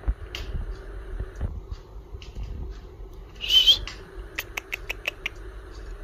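Pet budgerigars chirping, with one loud squawk about three and a half seconds in, followed by a quick run of sharp ticks, over a faint steady low hum.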